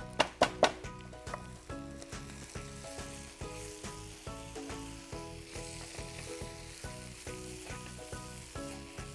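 Two or three sharp knocks of a pestle crushing peppercorns in a stone mortar. Then chicken sizzles as it fries in ghee in a cast-iron skillet, stirred with a wooden spatula, under background music with a steady beat.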